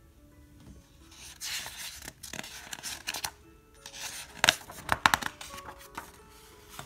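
A paper page of a hardcover picture book being handled and turned, rustling several times with two sharp crisp flaps past the middle.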